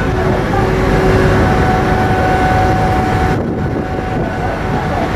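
Large car ferry's engines and machinery running: a loud, steady low rumble with a thin hum over it that drops away about three seconds in.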